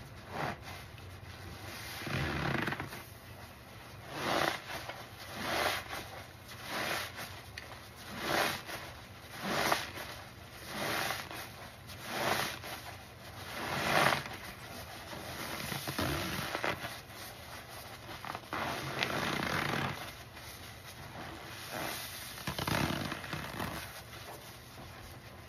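A soapy sponge, heavy with foam, is squeezed by hand over and over. Each squeeze is a wet squelch of suds and water. The squeezes come about one every second and a half through the middle, then slower and longer toward the end.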